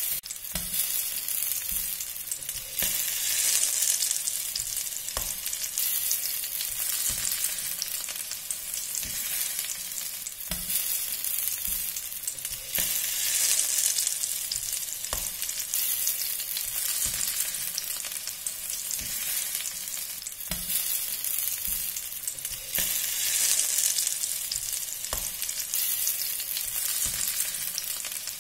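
Baby potatoes sizzling in olive oil in a stainless steel frying pan, the hiss swelling and fading, with a short dull knock about every two and a half seconds as each potato is pressed flat against the pan with a glass.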